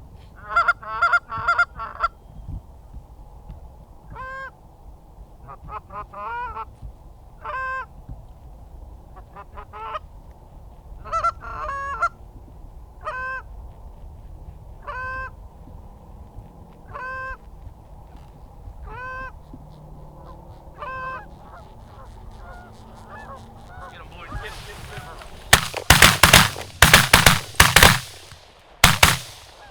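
Canada goose honking: a quick run of loud honks, then single honks every second or two. Near the end comes a cluster of several very loud, sharp shotgun blasts in quick succession, a hunting party's volley.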